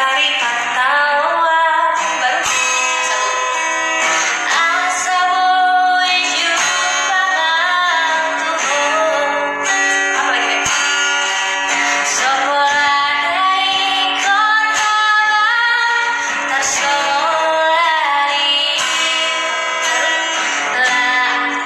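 A woman singing, accompanied on acoustic guitar.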